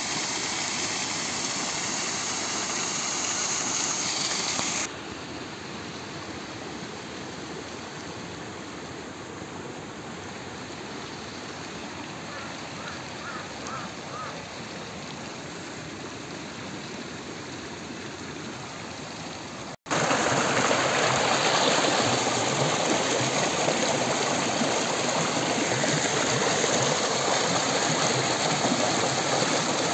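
Small mountain waterfall and stream rushing and splashing over rocks, a steady rush of water. It drops to a quieter, more distant rush about five seconds in, then comes back abruptly louder and closer about twenty seconds in.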